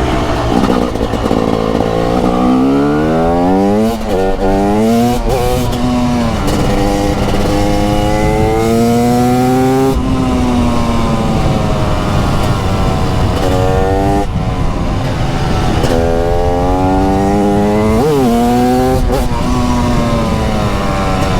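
TM SMR 300 supermoto's 300cc two-stroke engine under way, revving up hard through the gears in quick rising sweeps, about four seconds in and again near the end, then backing off in long falling glides as the bike slows. There is no steady cruising: the pitch keeps climbing and dropping throughout.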